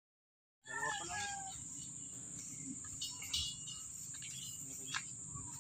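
Steady high-pitched drone of field insects, cricket-like, starting about half a second in, with short bird chirps about a second in and again around three seconds in, and a sharp click near the end.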